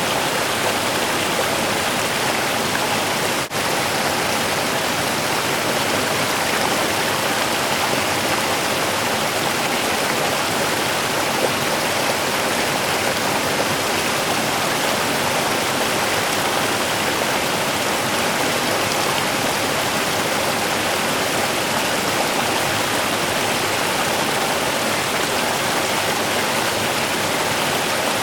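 Small river running steadily, an even rush and babble of flowing water, with a momentary dip in level about three and a half seconds in.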